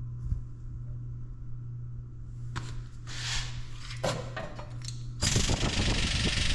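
Steel blocks clinking against each other and the bearing stack as they are set in a shop press. About five seconds in, the press's air-driven hydraulic pump starts with a loud hiss and fast rattle as it begins pressing the bearings onto the drive-motor shaft. A steady low hum runs underneath.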